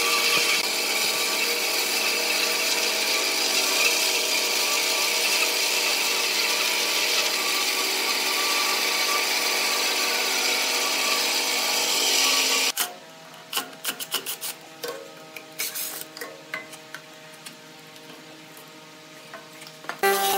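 Bandsaw running and cutting lengthwise through a bark-covered log: a steady, high-pitched hiss of the blade through the wood. About two-thirds of the way through it stops abruptly, leaving scattered knocks and clicks of the wood being handled.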